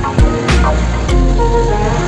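Background music: a song with a heavy, deep bass that slides down in pitch near the start, over percussive hits.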